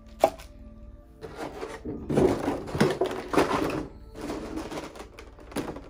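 Box packaging being handled: a sharp click about a quarter second in, then several bursts of rustling and scraping from the cardboard box and its plastic tray.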